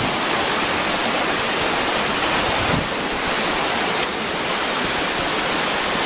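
Waterfall rushing steadily: a constant, even hiss of falling water.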